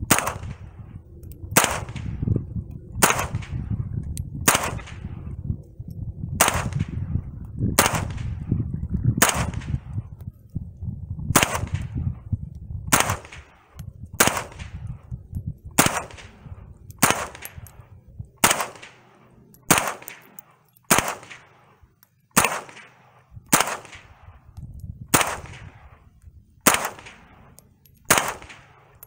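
Smith & Wesson M&P 15-22 semi-automatic .22 LR rifle firing Aguila Super Extra hollow points: a long, steady string of single sharp shots, about one a second. The rifle cycles every round without a jam, showing that the newly fitted Volquartsen extractor is working. Wind rumbles on the microphone through about the first half.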